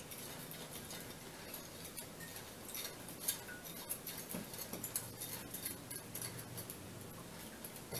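A spoon stirring coffee in a ceramic mug, clinking lightly against the sides in quick, uneven clicks.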